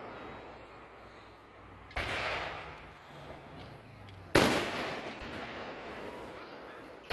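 Aerial firework shells bursting twice: a lighter bang about two seconds in, then a louder one a couple of seconds later, each trailing off in a long fading rumble.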